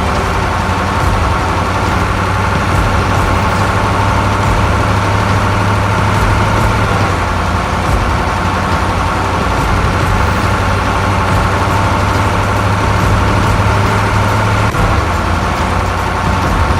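Heavy vehicle engine idling steadily, a continuous low drone, the kind of engine sound used for a toy army truck or tank.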